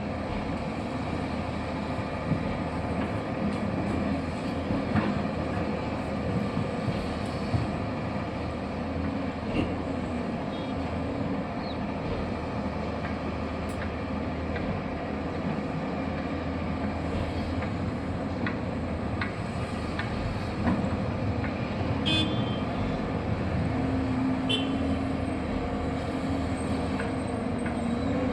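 Excavator engine running steadily, with a few faint clicks and clanks; a steadier hum comes in near the end.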